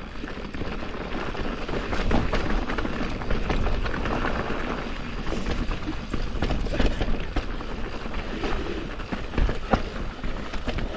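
Mountain bike descending a rough trail: tyres rolling and crunching over dirt and rocks, with the bike knocking and rattling over bumps.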